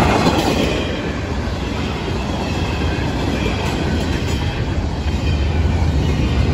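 Double-stack intermodal freight cars of a Florida East Coast Railway train rolling past close by: a steady rumble of steel wheels on the rails.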